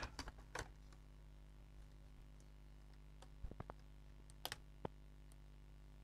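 Faint scattered clicks and light taps of a laptop motherboard and its plastic bottom case being handled and lifted apart: a few just after the start, more around three and a half seconds, and a small cluster near five seconds.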